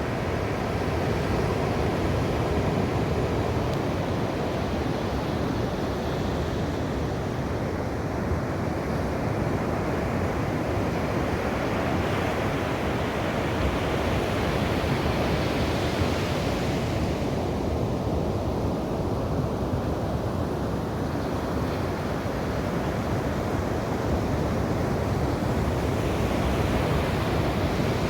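Ocean waves breaking and washing on a shore, a continuous rush of surf with one wave swelling brighter about halfway through and falling back.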